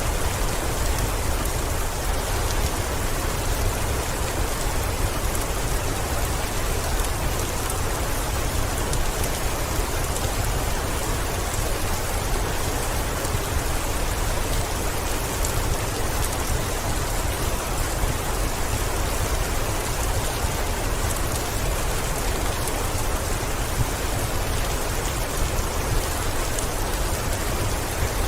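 Heavy rain on a window: a steady, even hiss that holds without change.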